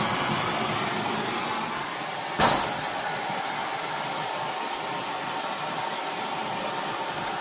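Bernzomatic trigger-start propane blow torch burning with a steady hiss of flame, heating a rusted exhaust bolt to free it. A brief clink of metal about two and a half seconds in.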